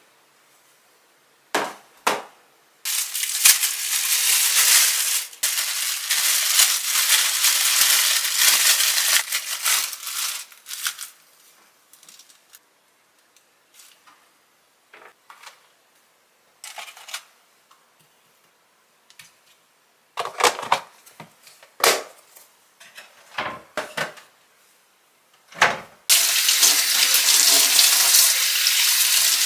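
Kitchen food-prep sounds. From about three seconds in comes some eight seconds of rustling noise, then scattered knocks and clicks. Near the end a kitchen faucet runs steadily as a green onion is rinsed under the stream.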